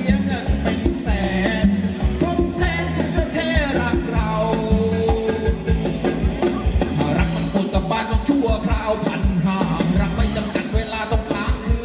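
Live band playing upbeat Thai ramwong dance music: a melody over a steady drum beat.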